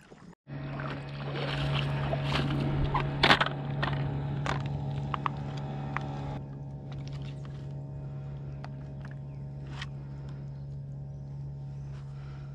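Knocks and rustling as a small yellow peacock bass is handled and laid on a measuring board, busiest in the first half and two sharper knocks about two and three seconds in, over a steady low hum.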